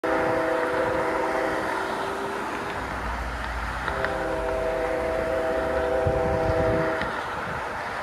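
Multi-note air horn of an approaching BNSF freight locomotive, not yet in sight: a long blast that ends a little under two seconds in, then after a pause a second long blast of about three seconds. A low rumble and a steady hiss lie underneath.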